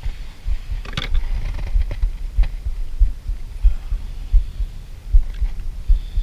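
Low, irregular thumping rumble on the camera microphone, with a sharp click about a second in and another about two and a half seconds in.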